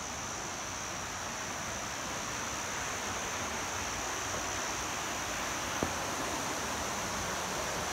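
Rocky mountain stream flowing over boulders, a steady rushing hiss, with a steady high-pitched whine over it and a single sharp click near the end.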